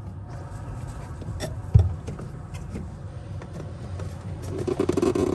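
Hands moving and handling plastic drain hoses among the plumbing: scattered light clicks and rubbing, one heavier knock a little under two seconds in, and a patch of rustling near the end, over a low steady hum.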